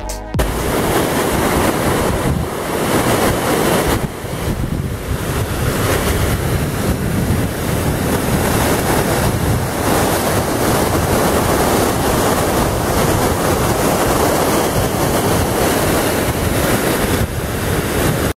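Whitewater mountain creek rushing and cascading over granite boulders: a loud, steady rush of water.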